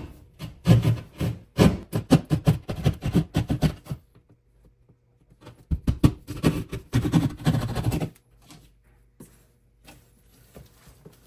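Hand drywall jab saw cutting a box opening in drywall: two runs of quick back-and-forth rasping strokes with a short pause between, then a few faint ticks near the end.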